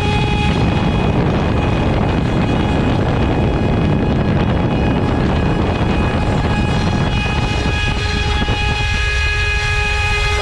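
CNC router spindle at 24,000 rpm, running with a steady high whine, and its 8 mm cutter milling into wood. From about half a second in, a loud rough cutting noise drowns out the whine; the whine comes back through it from about seven seconds on as the cut lightens.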